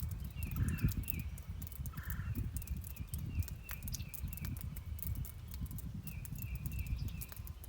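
Rain and nature ambience: scattered fine raindrop ticks over a low, uneven rumble, with a quick repeating high chirp, and two short calls about a second and two seconds in.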